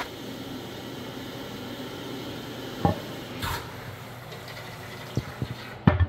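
Porcelain toilet tank lid being lifted off and set down: a few knocks and clunks, the loudest near the end, over a steady hiss.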